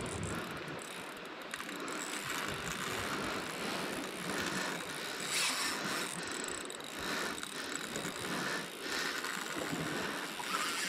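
Daiwa Saltiga Expedition 5500H spinning reel working under heavy load while a hooked bluefin tuna is fought: a steady mechanical clicking and whirring of the reel's gears and drag, rising and falling in strength.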